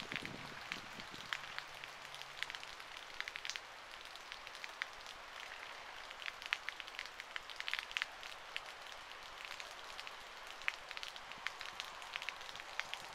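Rain from a thunderstorm falling steadily, a soft hiss dotted with many sharp, irregular raindrop ticks.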